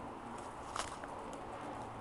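Faint steady outdoor background hiss under a stormy sky, with one brief sharp click a little under a second in; no thunder.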